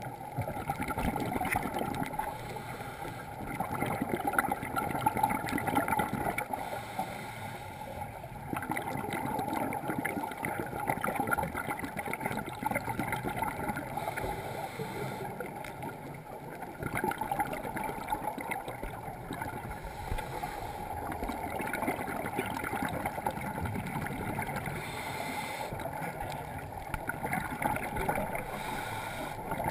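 Muffled underwater sound through a GoPro's waterproof housing: scuba divers' exhaled bubbles rising from their regulators, bubbling and rumbling in swells every few seconds.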